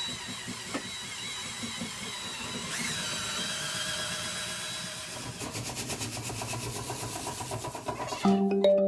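Drill spinning a flexible dryer-vent cleaning rod with a brush on the end, running with a steady whine that wavers in pitch. In the second half a rapid, even clicking joins it. Music comes in just before the end.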